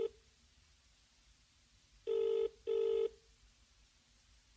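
Telephone ringing tone heard down the line by a caller, in the British double-ring pattern: the last of one pair of rings ends right at the start, then a full double ring, two short steady tones, comes about two seconds in.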